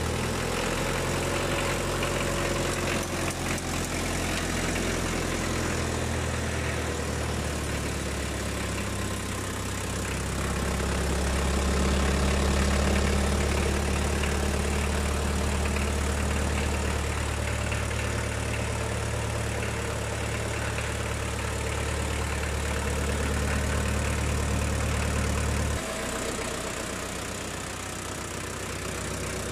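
Toyota Land Cruiser BJ40's four-cylinder diesel engine idling steadily. About 26 seconds in, its deep low note drops away abruptly.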